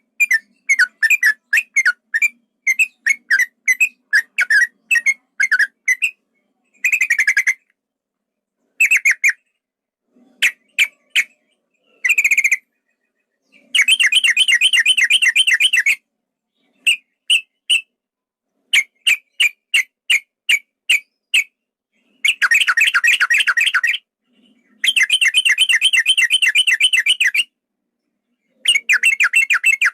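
Male yellow-vented bulbul singing: series of quick chirping notes in short phrases, alternating with long rapid trills lasting about two seconds each, the long rolling song kept by bird-keepers.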